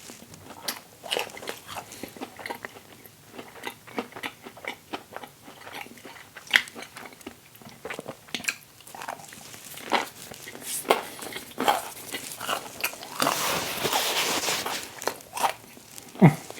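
Close-miked chewing of a vegan sausage and cheese English-muffin sandwich: many short wet mouth clicks and smacks, with a longer, louder stretch of crunching about two-thirds of the way through.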